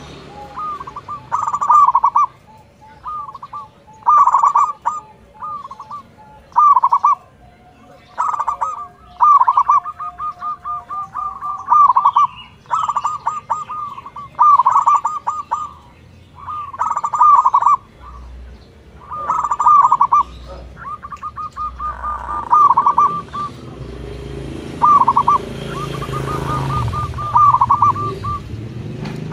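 Zebra dove (local perkutut) singing: bursts of quick cooing notes repeated every second or two, the full, clearly beaten song that keepers play as a lure call to set other perkutut singing.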